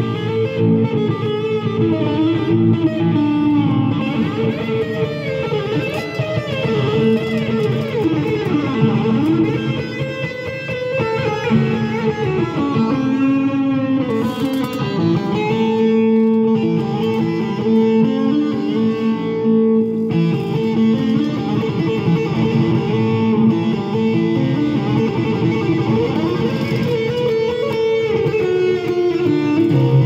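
Four-string bağlama with a pickup, played with a plectrum in a free improvisation: quick plucked melodic runs with a low note ringing steadily underneath.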